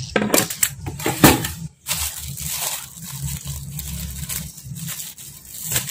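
Plastic bag crinkling and rustling as grated food is worked and pushed out of it onto a steel plate, with a few sharp knocks in the first two seconds.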